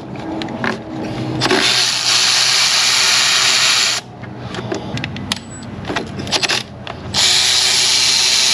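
Cordless electric ratchet running in two spells of about two and a half seconds each, spinning out the thermostat housing bolts, with scattered light clicks of the tool and handling between them.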